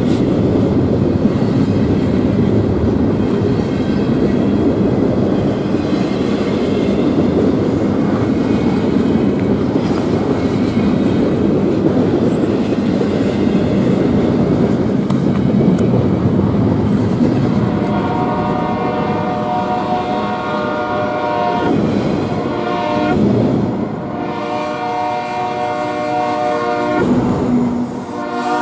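Double-stack intermodal freight cars rolling past, with a steady wheel-on-rail rumble and clickety-clack. About 18 seconds in, the air horn of the train's BNSF distributed-power (DPU) locomotive starts blowing in long blasts, with a few brief breaks.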